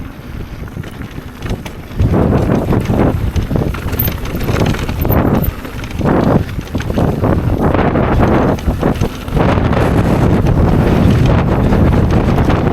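Strong gusty wind buffeting the microphone, a low rumbling noise that surges louder about two seconds in and stays loud with brief dips.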